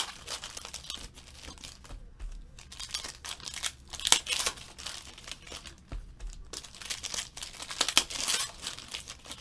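Foil wrappers of Panini Certified football card packs crinkling and tearing as the packs are ripped open by hand, in uneven bursts of crackling with short lulls, loudest about four seconds in and again near eight seconds.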